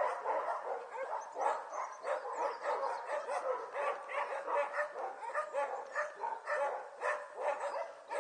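Six-week-old Border Collie puppies yapping and yipping in quick, short, high calls, several a second, as they play-fight.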